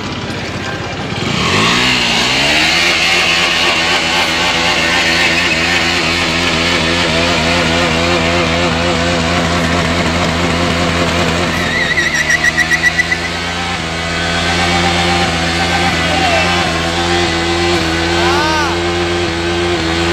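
KTM Duke motorcycle engine revving up about a second and a half in and then held at high revs during a burnout, the rear tyre spinning in place. The revs shift about twelve seconds in and then hold steady again.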